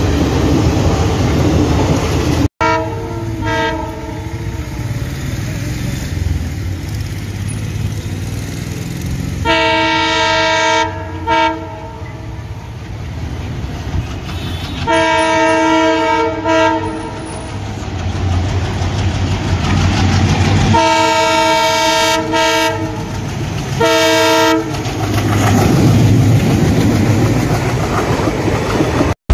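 Passenger train coaches rumbling past, then after a cut an approaching ALCO diesel locomotive sounds its multi-tone horn in four groups of blasts, each broken into short toots. Near the end the locomotive and its coaches pass close by, growing louder, with wheel clickety-clack.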